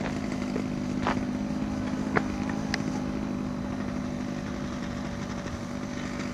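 Small model-aircraft engine idling steadily, with a few sharp clicks about one and two seconds in.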